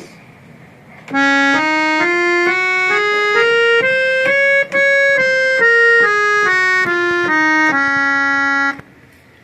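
Reed harmonium played on its male reed set alone, running a scale up about an octave and back down, one sustained reedy note after another.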